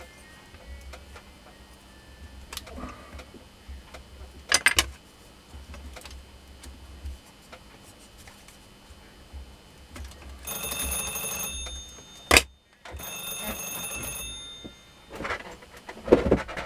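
A phone's electronic ringtone sounds in two stretches of a second or two, about ten and thirteen seconds in, over light rustles and a few sharp clicks from copper winding wire being handled on a grinder armature.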